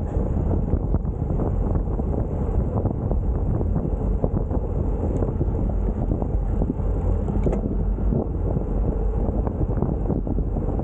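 Wind buffeting a moving camera's microphone as a steady low rumble, with faint light ticks and rattles throughout.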